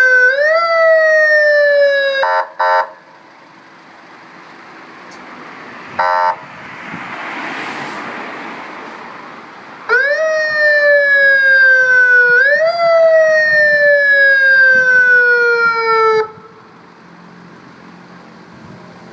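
Electronic emergency siren sounding a repeating tone that jumps quickly up in pitch and then slides slowly down, about every two and a half seconds. It breaks off with a couple of short pulsed blasts, gives one more short blast, and goes quiet under a softer swelling rush of noise. About ten seconds in the sweeping tone starts again, then stops suddenly near the end.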